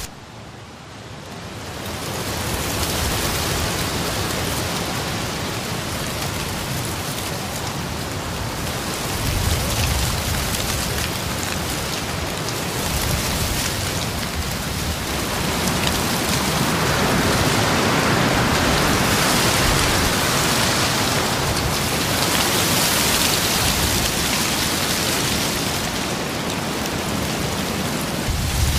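Dry fallen autumn leaves rustling and skittering along the ground in the wind, a continuous dry hiss that swells in gusts. It is faint for the first second or two, then builds, and is loudest in the second half.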